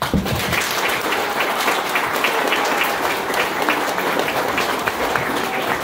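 Audience applauding: many people clapping together, starting all at once and keeping up steadily.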